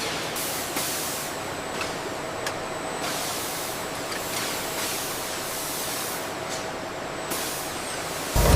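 Steady hissing factory machinery noise with a faint steady hum. A loud low rumble comes in just before the end.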